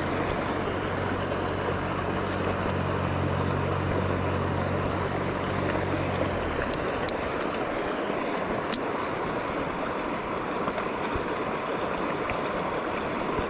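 Small mountain creek rushing steadily over a shallow run, with a low hum underneath that stops about six seconds in.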